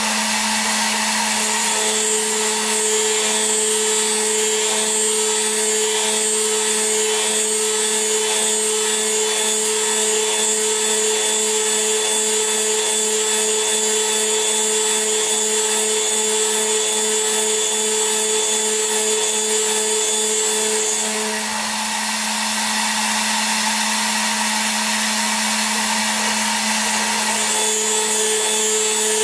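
CNC mill spindle running steadily at 13,000 RPM with a constant hum. A 3 mm end mill cuts aluminium dry, driven by closed-loop stepper motors on all axes: a higher whine comes in about a second and a half in, drops out for several seconds after about twenty seconds, and returns near the end.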